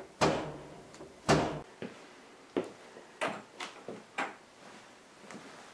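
A run of sharp knocks and thumps, about nine at uneven intervals, the two loudest in the first second and a half and the rest smaller.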